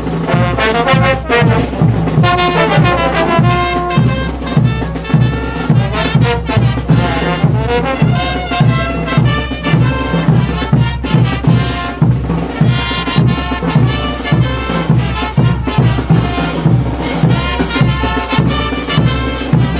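Brass band music with a steady, pulsing bass beat and trumpet-like melody lines, starting abruptly at the outset.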